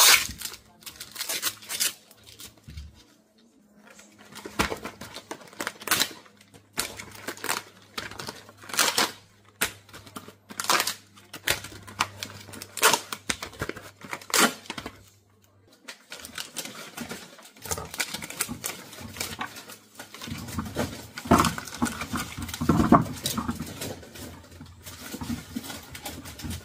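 Groceries being unpacked by hand: plastic packaging crinkling and rustling, with many quick clicks and knocks as packs and fruit are picked up and set down, busier about three quarters of the way through.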